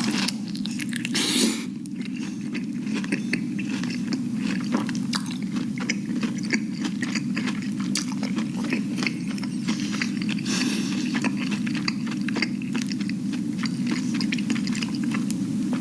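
Close-miked biting and chewing of crunchy fried food, with dense irregular crackles and crunches throughout over a steady low hum.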